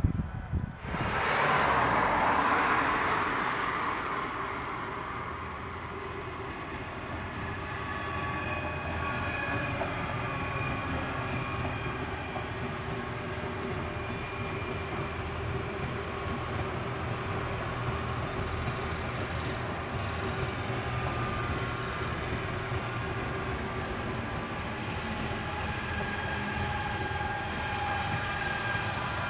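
A train running through the station. A loud rush of noise rises about a second in, then settles into a steady rumble of wheels on rail with faint thin squeals overhead.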